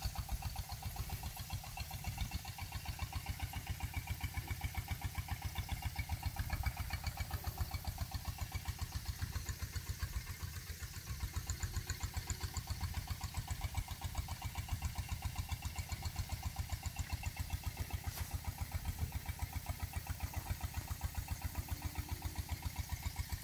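A small engine running steadily, with an even, rapid low pulse that does not change.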